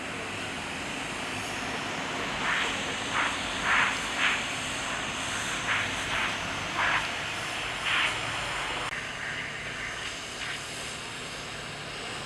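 JCB 3CX backhoe loader's diesel engine running steadily, with a series of short, sharper bursts between about two and eight seconds in.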